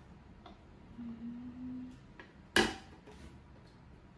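Hard plastic espresso-machine water tank being handled and fitted: a few light taps and a faint low hum lasting about a second, then one sharp plastic clunk a little past halfway.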